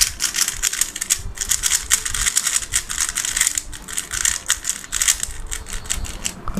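3x3 plastic speed cube being turned rapidly by hand: a dense, irregular clatter of clicks as the layers snap round. The cube has just been lubricated with a fast lube.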